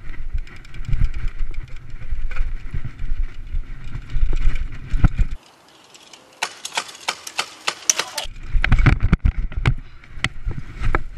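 Mountain bike ridden fast over a bumpy lawn, heard from a handlebar-mounted camera: rattling and wind buffeting the microphone, cutting off suddenly about five seconds in. A dense crackle of sharp clicks follows for about two seconds, then rumbling and heavy knocks as the bike crashes and the camera tumbles into the grass.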